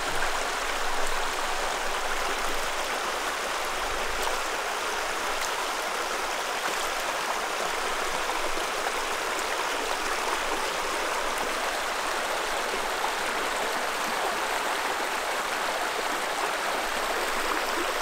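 Shallow creek rushing steadily over rocks and stones.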